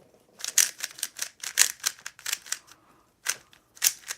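Quick, irregular clicks and rustles of a Rubik's Cube's packaging being handled and opened.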